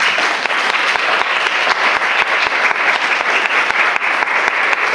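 An audience applauding steadily, many hands clapping together, starting suddenly.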